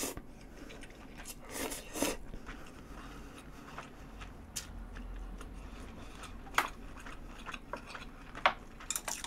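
A person eating spaghetti close to the microphone: a couple of short noisy slurps within the first two seconds, then quiet chewing broken by a few sharp mouth clicks.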